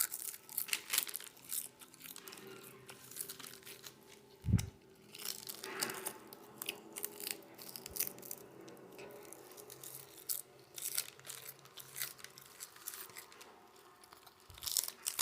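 Crisp seaweed being torn and chewed: a run of crackles and crunches, with a low thump about four and a half seconds in.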